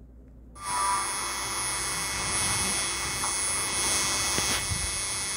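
Steady electrical hum and buzz with a thin high whine and background hiss, starting abruptly about half a second in after near silence; a faint knock near the end.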